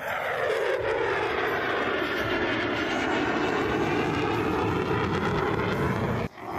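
F-16 fighter jet flying past, its engine noise falling in pitch over the first second or so, then a loud steady rush that cuts off suddenly near the end.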